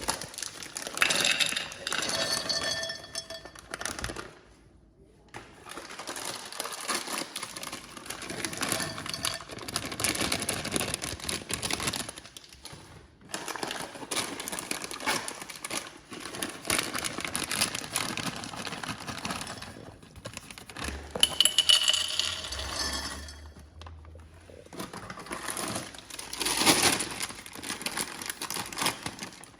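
Nuts and dried fruit rattling into small glass jars, with the jars and their lids clinking against each other.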